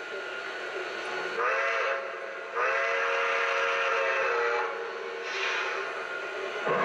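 O gauge model steam locomotive's electronic sound system blowing a chime steam whistle: a short blast about a second and a half in, then a long blast of about two seconds, over steady running sounds.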